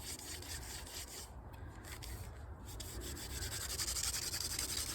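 Hand drill friction fire: a wooden spindle spun between the palms, its tip grinding in the notch of a wooden hearth board with a steady dry rubbing. There are two short breaks a little over a second and about two seconds in, then it goes on stronger.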